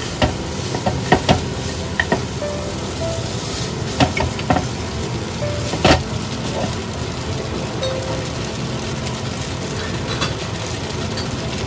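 Rice vermicelli and minced pork sizzling steadily in a pot as they are tossed with long chopsticks. The chopsticks knock sharply against the pot several times in the first six seconds, then the sizzle carries on alone.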